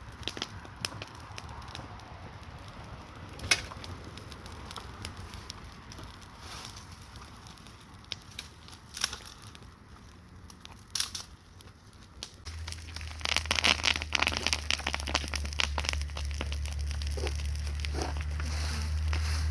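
Bonfire burning, the wood crackling with scattered sharp pops. About two-thirds of the way through, a steady low rumble comes in and the crackling gets denser and louder.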